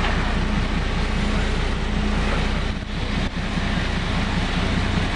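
Motor vehicle engine and road noise heard from inside the cab: a steady low hum under a wash of noise, dipping briefly about three seconds in.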